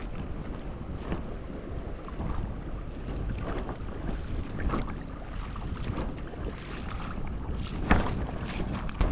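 Wind noise on the microphone over water, with a few short splashy sounds, the loudest about eight seconds in.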